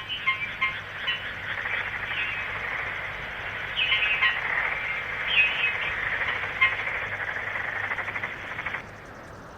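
Chirping animal calls, like a frog chorus, sounding thin and filtered, with repeated short falling chirps over a pulsing chatter; the sound cuts off abruptly about nine seconds in.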